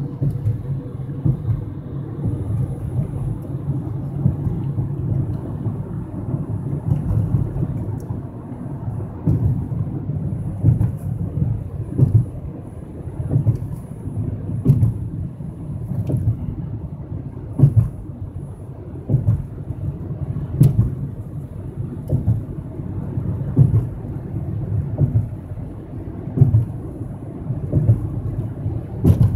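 Road and tyre noise inside a car's cabin at highway speed: a steady low rumble with irregular heavier thumps every second or two.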